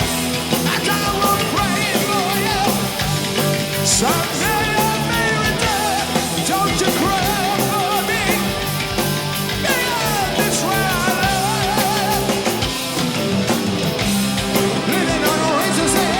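Rock music with a loud, steady mix of guitar and held melodic lines.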